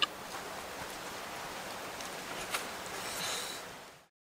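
Steady outdoor background hiss with a sharp ringing clink at the start and a lighter click about two and a half seconds in, fading out to silence just before the end.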